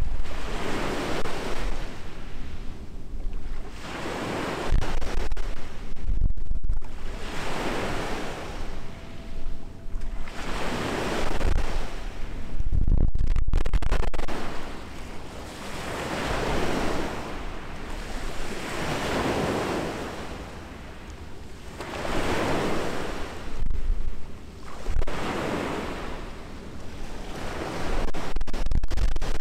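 Small waves washing onto the shore, a hiss that swells and falls away about every three seconds. Now and then wind gusts rumble on the microphone.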